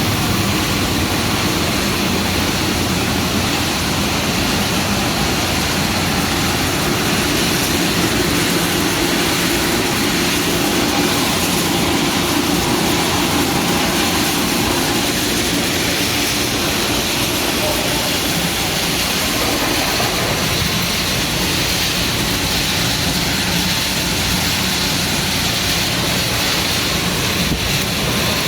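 Pet food extruder production line running: a loud, steady, unbroken machine noise.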